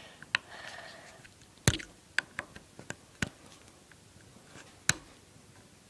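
Irregular sharp clicks and taps of a flathead bit prying at a plastic wall-mounted fan-remote holder that is stuck and won't come out.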